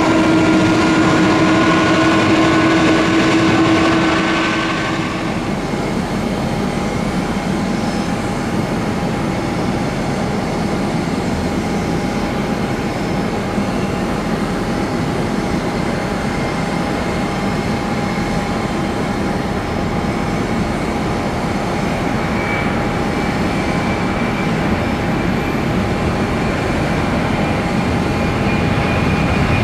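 Boeing 767-300ER jet engines: a close pass with a multi-tone engine whine that drops away about five seconds in, then a steady rumble with a faint whine as the airliner moves onto the runway. Near the end a higher whine rises and the sound grows louder as the engines spool up for the takeoff roll.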